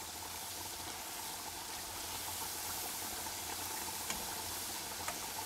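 Castagnole, small balls of ricotta dough, sizzling as they deep-fry in seed oil in a small pot: a steady hiss with a couple of faint pops near the end.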